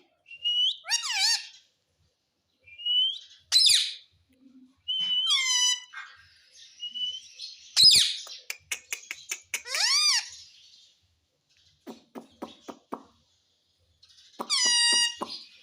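Pet ring-necked parrot giving a string of short, high-pitched calls and squawks, some held on one note and some sliding in pitch. Runs of rapid clicks come between them three times.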